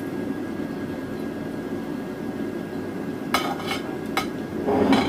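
Metal kitchen tongs clinking against a ceramic plate a few times in the second half as broccoli florets are set down, over a steady low hum.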